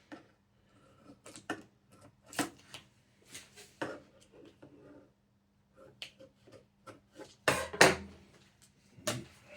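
Scattered taps, knocks and rustles as a vinyl-wrapped wooden drawer face board is handled and worked on at the bench; the loudest knock comes about three-quarters of the way in, with another shortly before the end.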